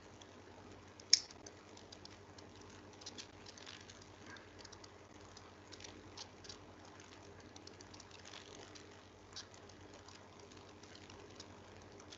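Faint scattered clicking of computer keyboard and mouse use, with one much louder sharp click about a second in, over a faint steady low hum.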